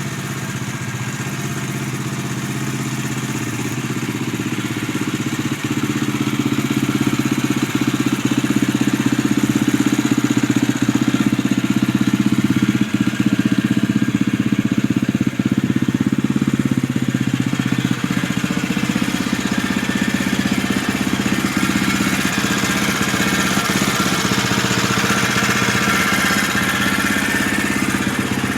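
2011 Husqvarna TE630's single-cylinder four-stroke engine running steadily, with the 'blender noise' the owner finds disappointing and doubts is normal, a noise that started before 100 miles.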